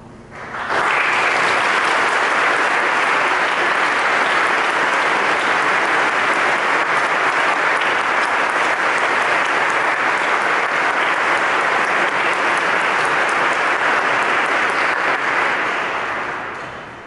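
Audience applauding. The applause breaks out just under a second in, holds steady, and dies away near the end.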